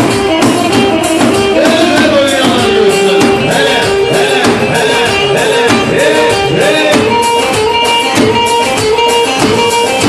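Loud live dance music: a davul drum beating a fast, steady rhythm under a melody line that bends and slides in pitch.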